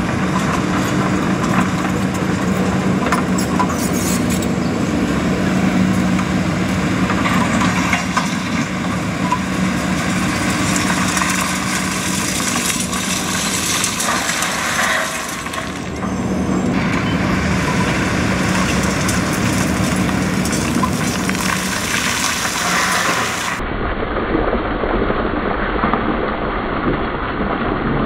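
Takeuchi TB2150R compact excavator's diesel engine running steadily, while broken concrete rattles and clatters as it is shaken out through its skeleton bucket and pours to the ground. Near the end the sound turns duller and deeper.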